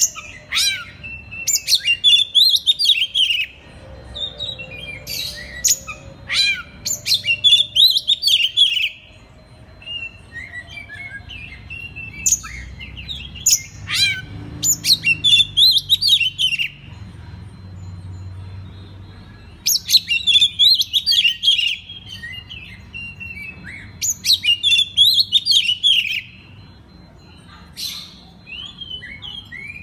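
Oriental magpie-robin (kacer) singing in loud bouts of rapid, varied whistles and chattering notes, with gaps of a second or two between bouts. The song is filled with imitations of other songbirds.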